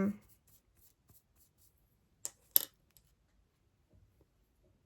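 Small plastic makeup items handled at close range: a few faint ticks, then two short, sharp clicks a little over two seconds in.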